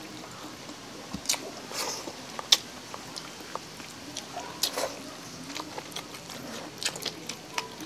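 Two people chewing and smacking their lips as they eat stewed pork offal by hand, a scattering of sharp wet mouth clicks, the loudest about two and a half seconds in.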